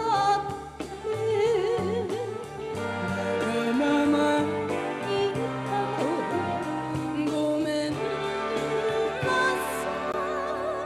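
A female vocalist sings a slow Japanese pop ballad with vibrato, backed by a live studio band with saxophones and brass.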